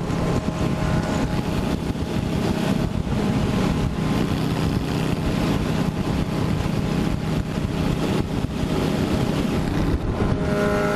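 Yamaha V-Star 1100 cruiser's V-twin engine running steadily at highway cruising speed, with wind rushing over the microphone.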